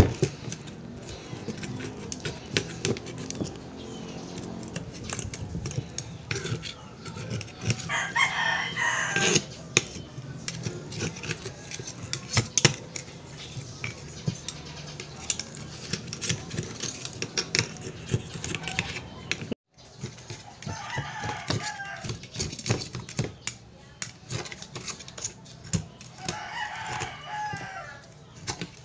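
Small clicks and scrapes of a steel blade working meat out of a clam shell on paper. A rooster crows three times over it, each crow about a second and a half long.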